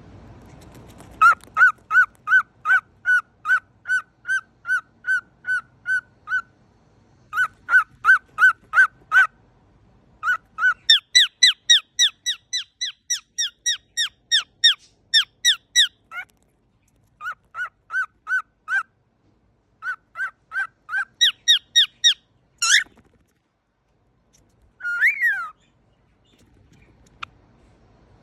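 Cockatiel honking and squeaking in rapid runs of short calls, about three a second, in several bouts with brief pauses between. Near the end comes one longer call that rises and falls in pitch.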